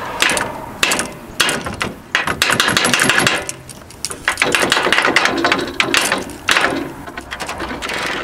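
Hand tools working the upper control arm of an 05 Lincoln Town Car into its mounts: sharp clicks and knocks in quick runs, densest from about two to three and a half seconds in and again around five seconds in.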